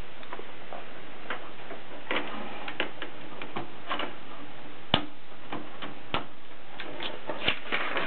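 Irregular mechanical clicks and clacks from an Olympia Traveller de Luxe portable typewriter's mechanism being handled by hand, with a few sharper clacks among lighter ticks, over a steady hiss.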